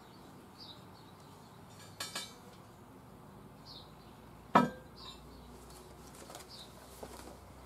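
A hand knocking on an 8 mm thick steel plate: a couple of light metallic clinks about two seconds in and one sharper ringing knock a little past halfway. Faint bird chirps sound now and then.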